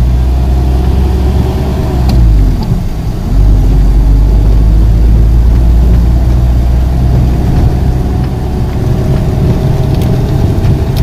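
Engine and road noise from inside a moving UV Express van's cabin: a loud, steady low rumble. About two seconds in, the engine note dips briefly, then picks up again as the van gathers speed.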